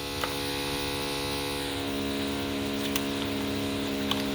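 Steady electrical hum with many overtones, unchanging in pitch, with a few faint clicks.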